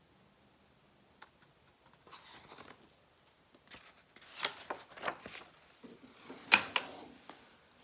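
Pages of a large picture book rustling and flapping as the book is handled and turned, with short paper snaps; the loudest sharp snap comes about six and a half seconds in.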